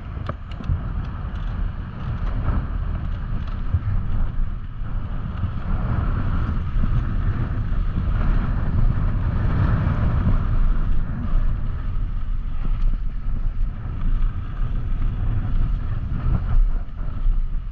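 Wind buffeting the microphone along with the rumble of a mountain bike's tyres over a loose dirt trail, a steady dense noise that swells a little toward the middle.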